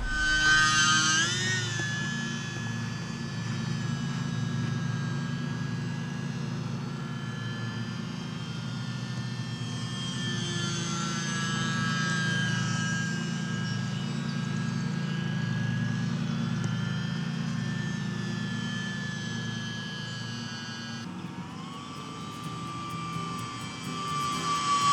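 Small electric RC airplane's motor and propeller running with a steady high whine that drifts slightly in pitch, dropping to a lower pitch about 21 seconds in as the throttle is eased back.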